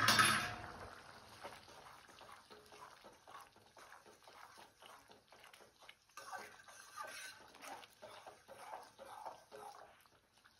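Thick tomato-onion masala gravy simmering in a steel kadai, with faint irregular popping and bubbling, while a steel spoon stirs in the garam masala. A brief louder sound at the very start fades within about a second.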